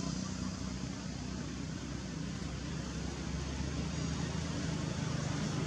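Steady outdoor background noise with a low droning hum, which eases a little after the start and grows again near the end; no monkey calls stand out.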